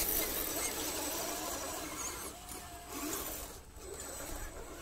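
Radio-controlled Axial SCX10 scale Jeep crawler driving across sand, its electric motor and gears whining, the pitch rising and falling with the throttle.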